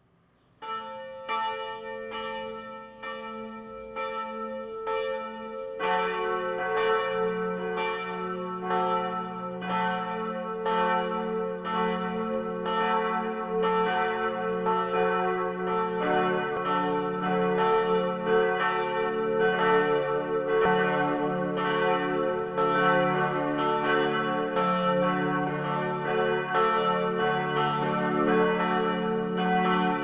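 Church bells ringing: a single bell starts with strokes coming about every two-thirds of a second, and a deeper bell joins about six seconds in, the strokes overlapping into a full, steady peal.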